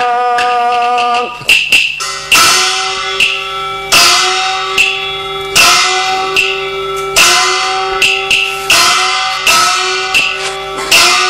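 A sung held note ends about a second in. Chinese opera percussion accompaniment then plays a steady beat of ringing metal strokes, about one every 0.8 seconds, alternating strong and light, each tone bending slightly upward as it rings.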